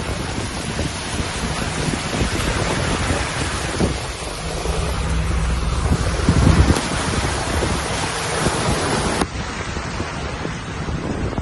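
Typhoon wind buffeting the microphone over a steady rush of floodwater, with a burst of heavier low buffeting about six to seven seconds in. About nine seconds in, the hiss thins out abruptly.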